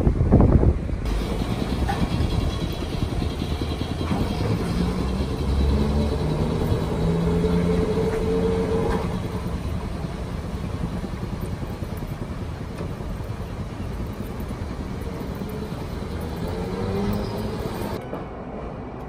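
Vintage-style electric streetcar passing on street-running track: a steady rumble with a low hum that swells and fades, loudest around the middle. Wind buffets the microphone for the first second.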